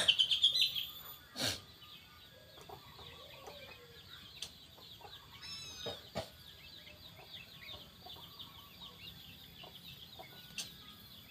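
Faint bird calls and chirps throughout, after a loud sudden sound at the very start that is followed by a quick run of sharp calls lasting under a second. A couple of sharp clicks come about a second and a half and six seconds in.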